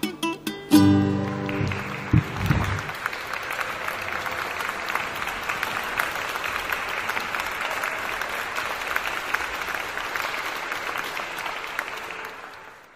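Ukulele playing its last few plucked notes and a final chord that rings out, then an audience applauding steadily, fading out near the end.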